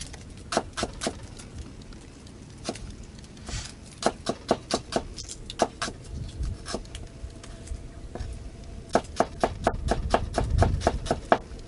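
Cleaver slicing shallots on a wooden chopping board: runs of sharp knocks, several a second, with short pauses between runs.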